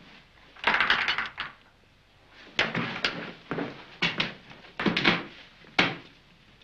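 Screwdriver turning screws in a wooden panel: several short bursts of clicking and scraping with brief pauses between.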